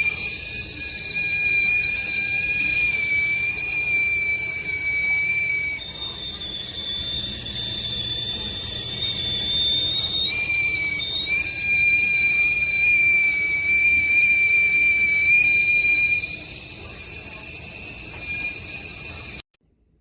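GGC stainless steel stovetop kettle whistling at the boil: a loud, steady two-tone whistle that wavers slightly in pitch and cuts off suddenly near the end.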